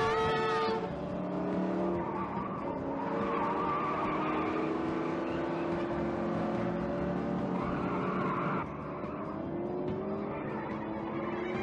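Film car-chase sound track: muscle-car engines revving and accelerating, pitch climbing again and again, with tyre squeal over steady road noise. A held horn-like tone cuts off just under a second in.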